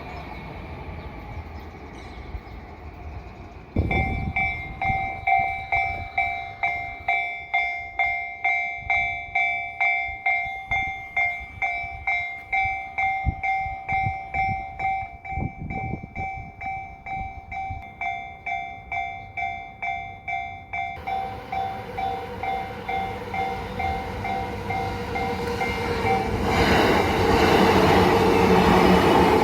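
Japanese level-crossing warning bell at the Yamanote Line's Dai-ni Nakazato crossing, starting about four seconds in and ringing its two-tone clang at about two strikes a second. A Yamanote Line train then approaches, growing louder, and passes through the crossing loudly near the end, drowning out the bell.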